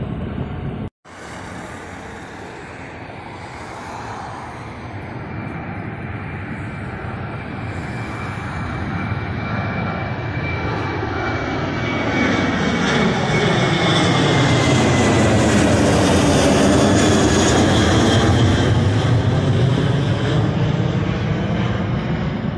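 Southwest Boeing 737 jet engines passing overhead on the climb-out. The roar builds steadily after a short break about a second in and is loudest a little past halfway, with a whine that slowly drops in pitch as the jet goes over and away.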